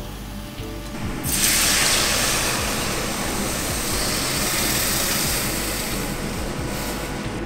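Cold water poured from a jug into a hot stainless-steel stock pot of dry-fried vegetables, starting about a second in: a loud hissing splash as the water hits the hot vegetables and pot, easing off toward the end. The cold water meets the hot pot as a thermal shock, meant to draw stronger flavour into the stock.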